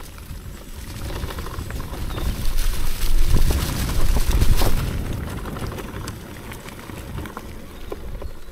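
Mountain bike rolling over a rough dirt trail: tyre noise, rattling of the bike and a low rumble, growing louder for a couple of seconds in the middle and then easing.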